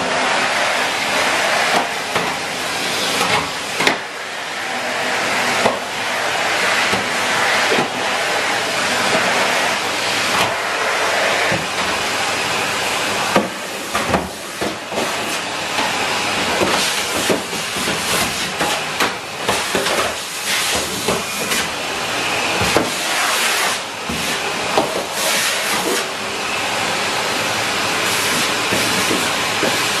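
Henry cylinder vacuum cleaner running with a steady hiss of suction, broken by many short knocks and dips as the floor tool is pushed back and forth over a rug.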